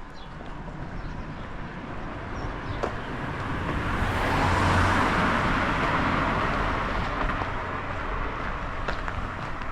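A car passing by. Its engine and tyre noise swell steadily to a peak about halfway through, then slowly fade away.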